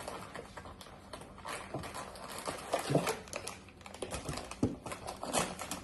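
Scattered light clicks, taps and rustling from kitchen items being handled while ingredients are added to a bowl.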